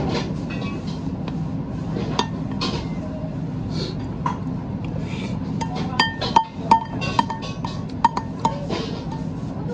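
A white spoon clinking against a ceramic plate while scooping food, with a quick run of short ringing clinks in the second half, over a steady background with music.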